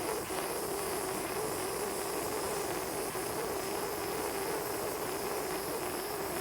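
Small Blazer butane torch flame burning steadily: a rushing hiss with a faint wavering hum. It is heating the fluxed solder seam of a silver ring until the flux turns glassy.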